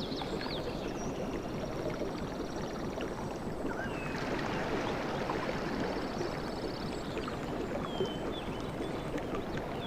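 Sea waves washing onto a beach, a steady rush of water, with a few faint high whistling glides and a short trill over it.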